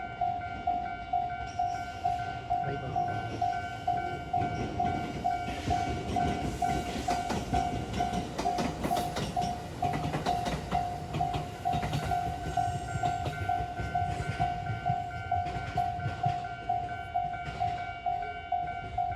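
Japanese level-crossing warning bell ringing in a steady, fast repeating single-pitched ding. Through the middle a train passes over the crossing, its wheels rumbling and clicking over the rail joints.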